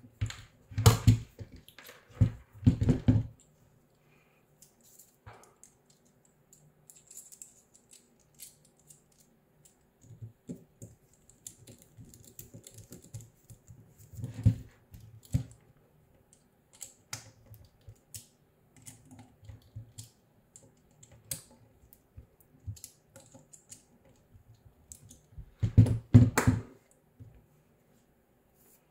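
Small clicks and knocks of a stepper motor and 3D-printed plastic motor bracket being handled and screwed together with a small screwdriver, with louder clusters of knocking about a second in, around three seconds, midway and near the end.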